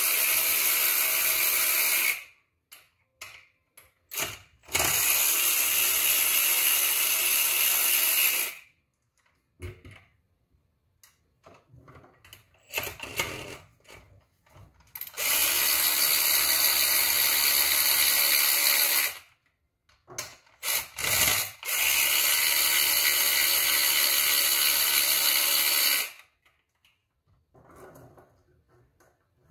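Cordless electric ratchet spinning out the 8 mm bolts of an engine's valve-adjustment caps. It runs four times, two to four seconds each, with short clicks of handling between the runs.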